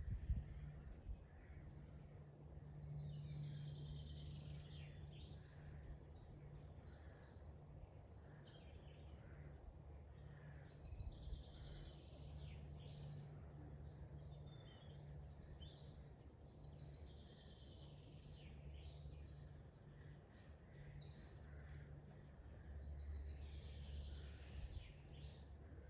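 Woodland birds singing faintly: one bird repeats a bright song phrase four times, with scattered chirps from others between. A low steady rumble lies underneath.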